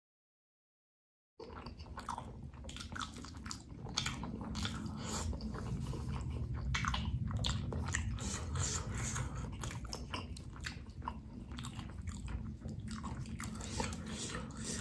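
Complete silence for about the first second and a half, then close-miked wet biting and chewing of cheese-filled bakso meatballs: a continuous run of small smacking and squishing clicks.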